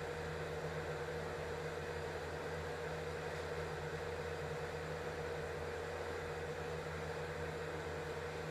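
Steady machine-like background hum: a constant low drone with a higher tone above it over faint hiss, not changing at all.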